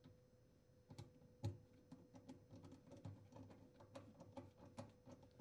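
Faint, irregular clicks and taps of a plastic dishwasher drain hose being handled and fed through the cabinet, starting about a second in, with one louder knock about a second and a half in, over a faint steady hum.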